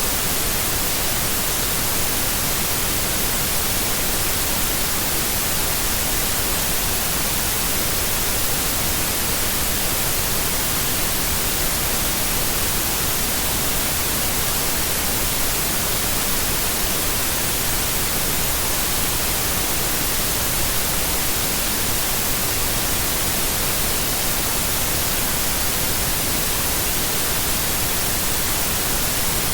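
Steady white noise: an even, unbroken hiss spread across the whole range, strongest in the highs.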